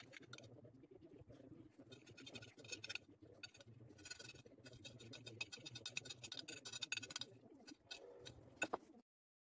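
Metal spoon scraping and clicking against a plate tipped up to the mouth while eating: a run of quick small ticks and scrapes, densest in the middle, with one sharper clink near the end.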